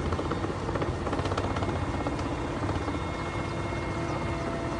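Helicopter engine and rotor noise heard from inside the cabin: a steady drone with a few constant whining tones.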